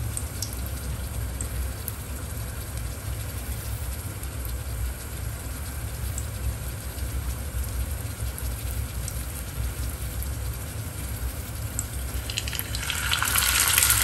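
Ginger slices frying gently in hot oil, a faint crackle with a few small pops over a steady low hum. Near the end a whole galunggong (round scad) goes into the oil and a loud sizzle sets in.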